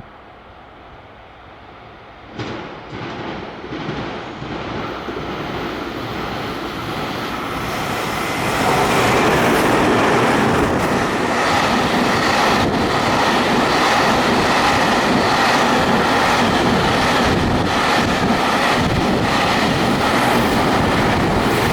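JR Freight M250 series "Super Rail Cargo" electric container train approaching and passing at speed. Its noise builds from a couple of seconds in and holds loud from about eight seconds, a rush of wheels on rail with repeated clatter over the rail joints.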